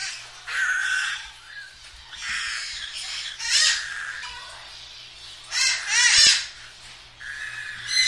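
A flock of budgerigars chattering: a string of harsh chirps and squawks, with the loudest warbling calls about three and a half seconds in and again around six seconds in.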